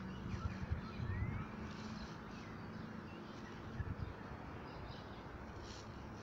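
Outdoor ambience: a few faint bird chirps, one rising chirp about two seconds in, over a steady low rumble.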